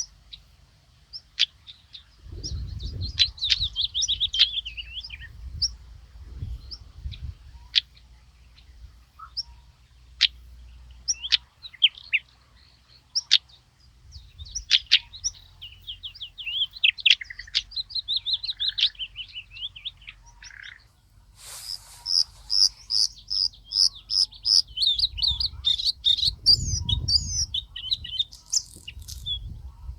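Songbirds chirping and singing in varied short phrases, with a fast run of repeated high notes, about two or three a second, beginning a little past the middle. A low rumble comes and goes underneath at times.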